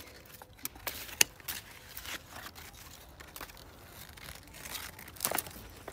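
Hand pruning shears snipping the branches of a fig tree: a series of sharp, irregular clicks and snaps, with the rustle of dry leaves and twigs between them.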